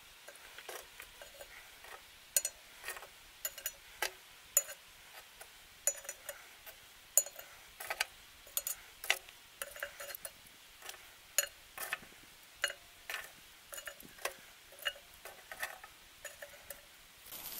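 Metal tongs clicking and tapping as lit charcoal briquettes are set one by one on the bottom of an upturned cast iron camp oven. The light clicks come at an uneven pace, about one or two a second.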